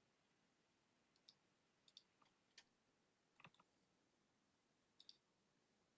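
Faint computer mouse clicks against near silence: single and double clicks, five or six in all, spread over a few seconds.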